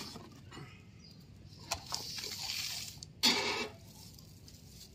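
Foam packing and plastic wrap rustling and scraping against a cardboard box as a fog machine is pulled out, with a louder, short scrape a little over three seconds in.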